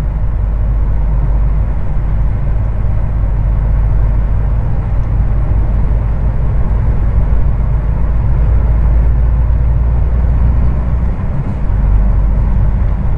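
Heavy truck driving on the road, heard from inside the cab: a steady low engine drone with road and tyre noise. The low drone dips briefly about eleven seconds in.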